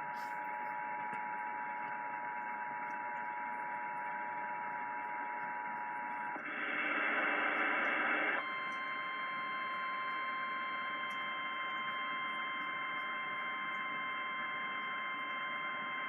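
Emergency Alert System attention signal received over AM radio: a steady two-tone alarm over static hiss for about six seconds. It breaks into about two seconds of louder noise, then a single, slightly higher steady warning tone takes over and holds.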